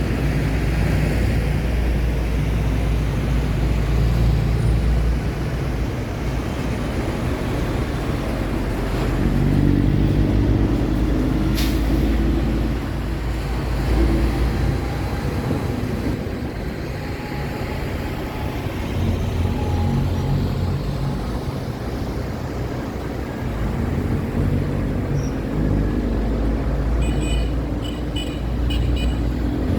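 City road traffic: engines of cars and heavy trucks passing one after another, a deep low rumble that swells and fades with each vehicle over steady tyre noise. A single sharp click comes about twelve seconds in, and a run of short, high repeated tones sounds near the end.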